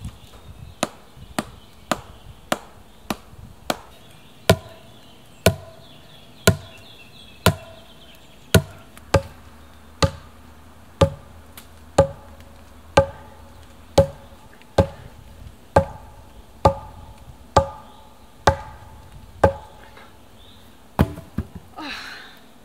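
Wooden club knocking the top of an upright wooden pole to drive it into the ground: steady wood-on-wood blows, lighter and quicker at first, then heavier and about one a second, each with a short ringing tone.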